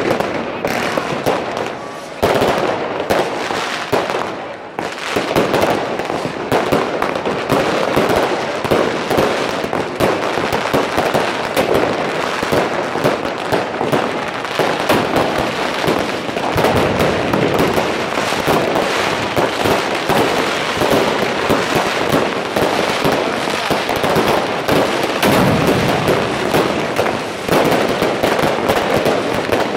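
Many fireworks and firecrackers going off at once: a dense, continuous crackling and banging of rockets bursting overhead and bangers on the ground, with no break.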